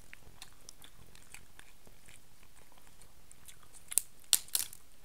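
Close-miked mouth sounds of chewing soft king crab meat, small wet clicks, then a few loud sharp clicks near the end as she works the crab body apart with her fingers.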